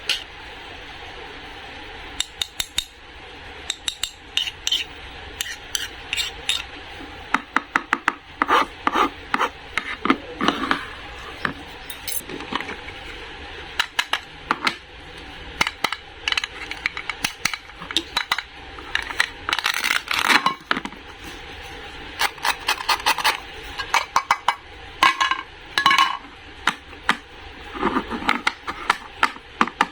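A long run of short clicks, taps and clinks of hard objects being handled, some with a brief ring, coming irregularly and in quick clusters.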